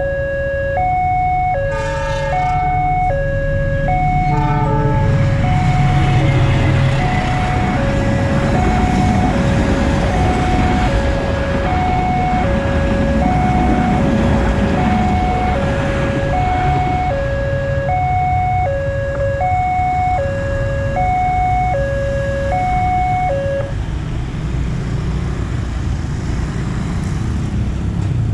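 Railway level-crossing warning alarm: an electronic chime alternating a high and a low tone, about one pair a second, that stops about 24 seconds in. Over it, two short horn blasts sound near the start, then a train passes with a rumble and clatter of coaches. Motorcycle engines are heard at the end.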